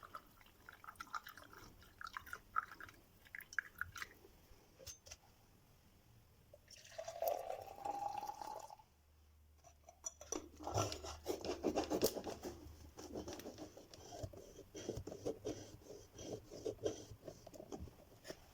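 Small household handling sounds, clicks and rustles, with liquid poured into a cup for about two seconds, its pitch rising as the cup fills, followed by a run of close clicking and rubbing.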